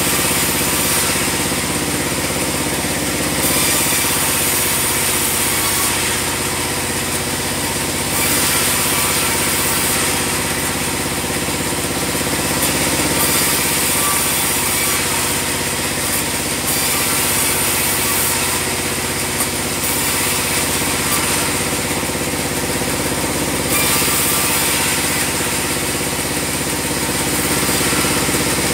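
Band sawmill running steadily with an even engine-like hum, and a high hiss that swells and fades every few seconds.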